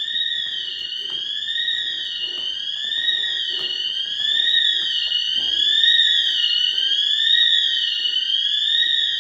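Building intruder alarm sounder wailing loudly, its high-pitched tone sliding up and down in pitch about once every second and a half without a break.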